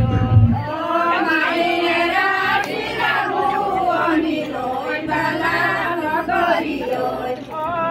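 Several women's voices singing together in a group, with long held, gliding notes.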